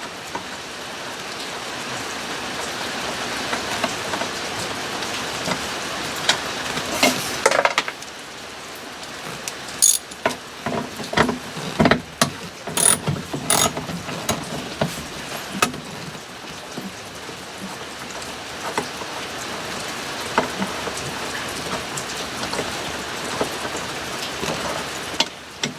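Socket ratchet wrench clicking and metal parts knocking as bolts are worked loose, with sharp clicks bunched together about ten to sixteen seconds in, over a steady hiss.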